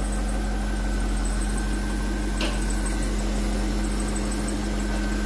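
2000 C5 Corvette's LS1 V8 idling steadily, with one faint click about two and a half seconds in.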